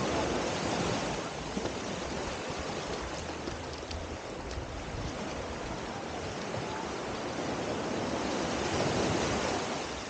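Small waves washing up and draining back on a sandy beach, a steady wash that swells near the start and again near the end.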